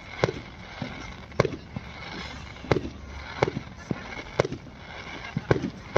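A fireworks display going off: a string of sharp bangs, about six loud ones roughly a second apart, with smaller pops between them over a steady hiss.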